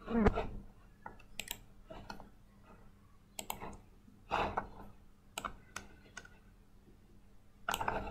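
Computer mouse clicking, a series of short, irregularly spaced clicks.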